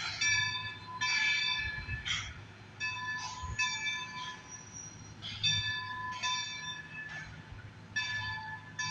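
Excursion train's locomotive bell ringing steadily, about one stroke a second, over a low steady rumble from the train.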